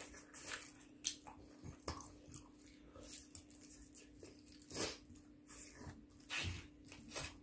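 Two people chewing and smacking their lips on pieces of spicy fried chicken: scattered short, wet eating sounds, the loudest about five seconds in and again about six and a half seconds in.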